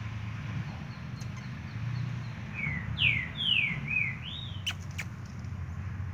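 A run of about six short whistled animal calls, most sliding down in pitch and the last rising then falling, starting about two and a half seconds in. Two sharp clicks follow about a second later.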